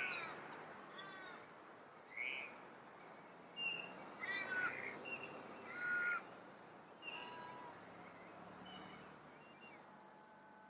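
A series of short bird calls, about eight in the first seven seconds, each falling in pitch, with longer gaps and fainter calls near the end.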